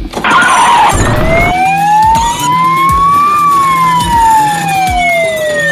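An electronic police siren wailing: one slow rise in pitch and a slow fall, after a brief rush of noise at the start.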